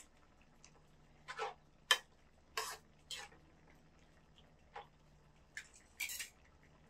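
People eating with chopsticks from pans and bowls: about eight short clicks and smacks, spread unevenly, the loudest near two seconds in and near the end. A faint steady low hum runs beneath.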